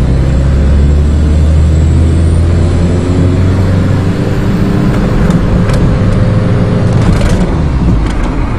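Diesel Dodge Caravan driving, heard from inside the cabin: a steady low engine drone with road noise, the engine note climbing gradually as it pulls. A few light clicks come in the second half.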